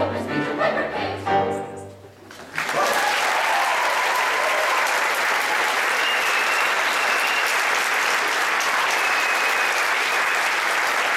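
A choir sings the last notes of a song and cuts off about two seconds in; after a short pause the audience breaks into steady applause.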